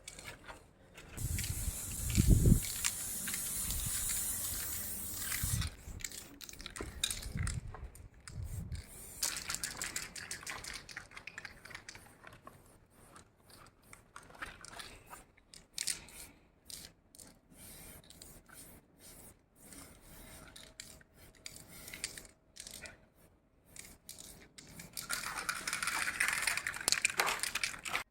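Aerosol spray-paint can hissing in short, stop-start bursts as a graffiti piece is painted. There are some low knocks and handling noises in the first several seconds, and a longer burst of spraying near the end.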